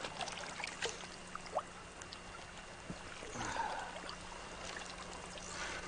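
Water splashing and trickling as a hooked king salmon thrashes at the surface close to the bank. A few sharp clicks fall in the first second and a half, over a faint steady hum.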